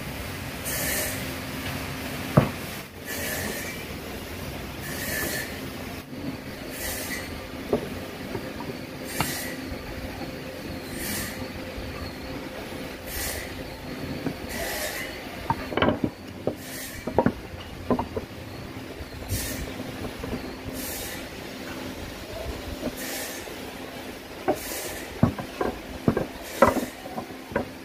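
Wooden slats of a folding chair knocking against one another and the workbench as they are handled, with a few sharp clacks, most of them in the second half. Under them runs a steady hum and a soft hiss that comes back about every two seconds.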